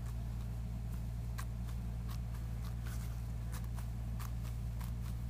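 Short, faint clicks and wet squishes come at irregular moments, a few a second, as a hand presses and turns wet rayon seam-binding ribbon in a pool of dye. Under them runs a steady low electrical hum.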